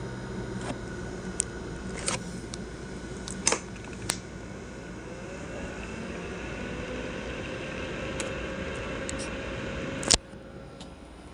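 Asus laptop CPU fan running loudly, a steady whir with a faint whine that slowly rises in pitch from about halfway through. There are scattered sharp clicks, and one loud click near the end, after which the fan noise drops.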